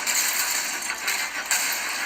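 Film action sound effects, a dense clattering and clinking with almost no bass, played back through an LG V40 ThinQ smartphone's loudspeaker.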